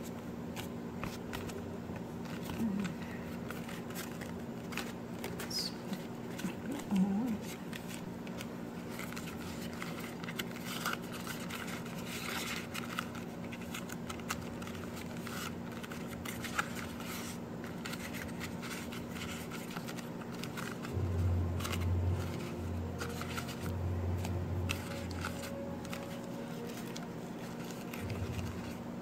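Banana leaves being handled and folded around dough balls: light rustling, crinkling and small clicks over a steady low hum, with a few dull low thuds about three-quarters of the way through.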